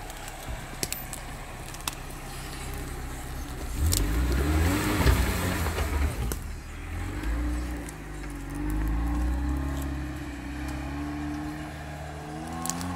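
Lada Niva's engine revving up and down as the car crawls over a forest mound, loudest about four to six seconds in as it passes close by, then running at steady revs as it pulls away. A few sharp clicks are heard along the way.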